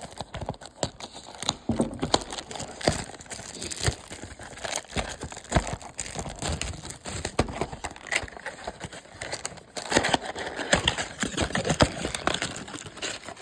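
Packaging of a trading-card box being torn open and handled: irregular crinkling, tearing and many small clicks and crackles.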